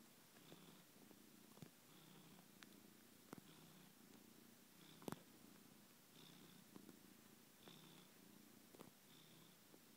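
Domestic cat purring faintly, the purr swelling and fading about once a second with its breaths. A few sharp clicks sound over it, the loudest about five seconds in.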